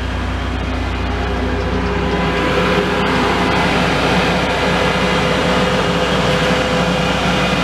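Steady machinery drone with a low electrical hum and several steady tones, growing a little louder about two seconds in.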